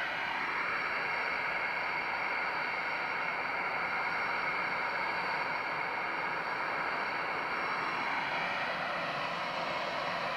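Twin-engine jet airliner's turbofan engines running steadily at taxi power, an even rush with a faint high whine.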